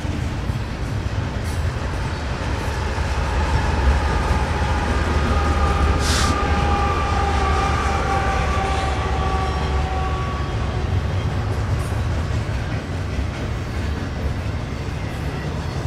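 Double-stack container well cars of a long BNSF freight train rolling past close by: a steady heavy rumble of steel wheels on rail. For several seconds in the middle a faint steady wheel squeal rides over it, with a brief hiss about 6 s in.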